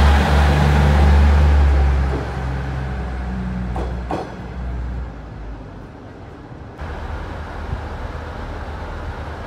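JR East KiHa 100 diesel railcar pulling away, its diesel engine droning low and steady, then fading as it moves off. Two short clacks come about four seconds in as its wheels cross a rail joint. After about seven seconds a quieter steady background remains.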